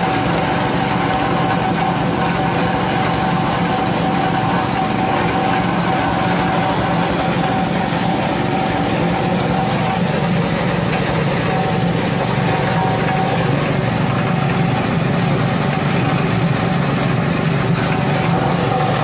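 Coconut-husk grinder (cocopeat and cocofiber machine) running steadily, driven by a small petrol engine while it shreds coconut husk into fibre. A steady high whine over the engine fades for a few seconds past the middle and comes back near the end.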